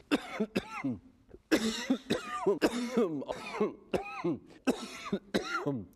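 A man's coughing fit from a cold: a rapid run of harsh, voiced coughs, about a dozen, each dropping in pitch, with a short pause about a second in before the coughs come thick and fast again.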